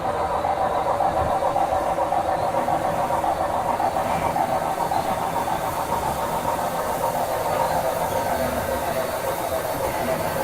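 Steam locomotive running sound, a steady continuous rumble with hiss, from an added steam-train sound-effects track.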